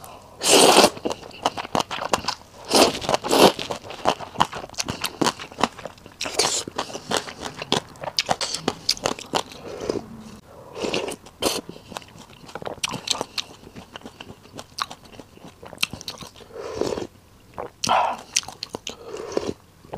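A person eating a bowl of rice noodle soup: loud slurps of noodles and sips of broth from a spoon, with chewing full of small clicks in between.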